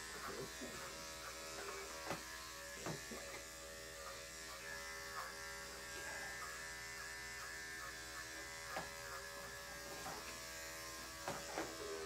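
Electric dog grooming clipper fitted with a #10 blade, running steadily as it shaves a cocker spaniel's leg, with a few brief knocks as the blade and hands move.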